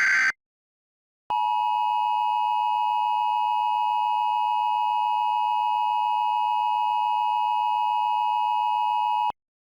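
Emergency Alert System broadcast alert: a buzzy digital header burst ends, and after a second's gap the two-tone EAS attention signal sounds steadily for about eight seconds, then cuts off. The attention signal announces the emergency message that follows.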